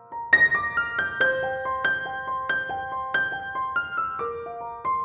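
Background piano music: a run of single notes, about two or three a second, beginning with a strong note about a third of a second in.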